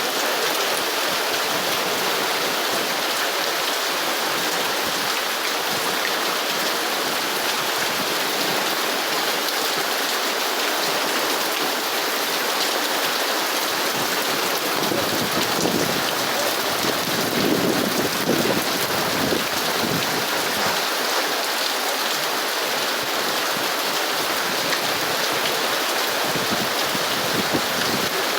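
Heavy rain pouring steadily, with a low rumble swelling for a few seconds about halfway through.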